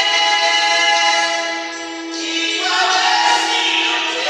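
Two women singing a gospel song into handheld microphones, amplified through a PA, holding long notes with a brief dip in loudness midway.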